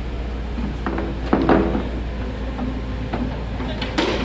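Komatsu excavator's diesel engine running steadily under a few sharp knocks and clanks. The loudest clank, with a short ring, comes about a second and a half in, and another knock comes near the end.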